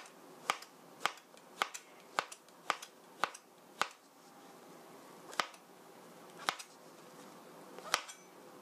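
Kitchen knife slicing white elf mushrooms thin on a cutting board: sharp knocks of the blade on the board, about two a second for the first half, then three slower, spaced cuts.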